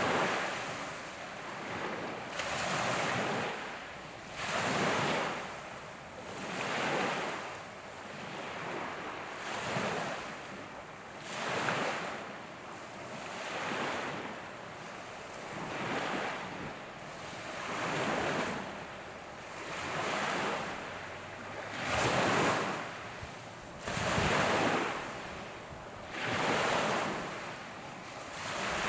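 Small waves breaking and washing up a gravel lakeshore, one surge about every two seconds, with wind.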